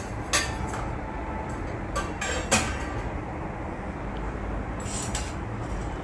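Stainless steel dishes and bowls clinking against each other and the wire rack as they are lifted out of a dishwasher. The clinks are separate and ringing, the sharpest about two and a half seconds in and a few more close together near the end, over a steady low rumble.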